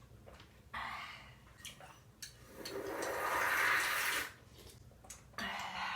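Someone slurping miso soup: a short slurp about a second in, a long drawn-out slurp that swells and fades in the middle, and another short one near the end.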